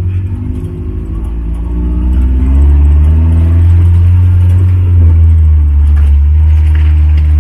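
Off-road jeep engine running under load, with a heavy low rumble. Its revs rise and fall several times, and it gets louder about two seconds in.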